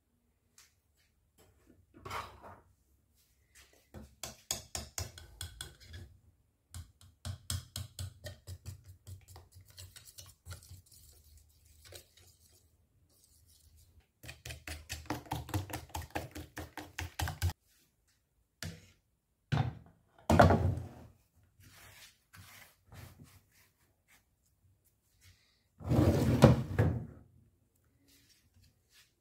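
A fork beating eggs and flour in a bowl, its tines tapping the bowl quickly, about five strokes a second, in several runs of a few seconds each. Near the end come a few louder, heavier knocks.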